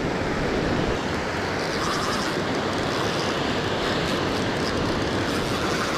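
Steady rushing noise of waves breaking in the surf close by, with wind on the microphone.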